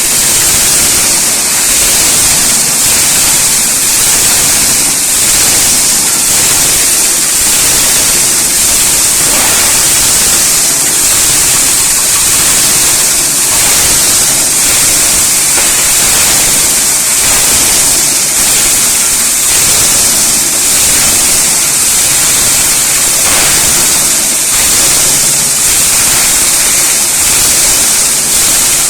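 Scrap grinder machine running, a loud, steady rushing noise strongest in the high treble that does not change.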